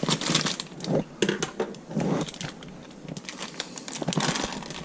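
A plastic bag crinkling and rustling while its contents are poured into a stainless steel bowl, with scattered small clicks and clatters.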